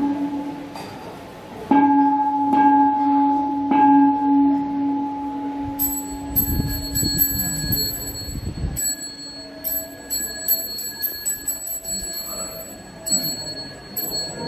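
Buddhist ritual bells. A low-toned bell is struck three times and rings on, then a small high-pitched bell is rung rapidly over and over through the second half. A low rumble sounds around the middle.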